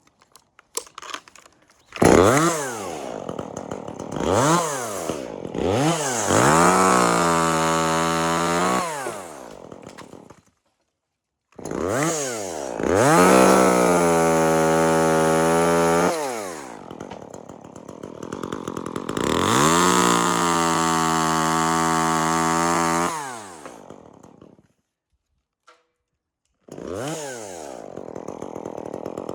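Two-stroke chainsaw revving in repeated bursts. It climbs quickly to high speed, holds there for a few seconds at a time and falls back between. It breaks off twice briefly and comes back at a lower steady speed near the end.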